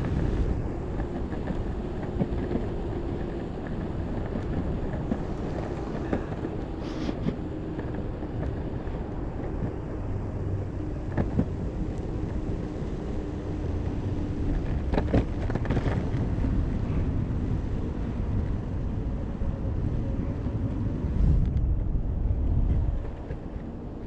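Electric skateboard rolling over pavement: steady wheel rumble with wind buffeting the microphone, and a few short knocks from bumps in the surface.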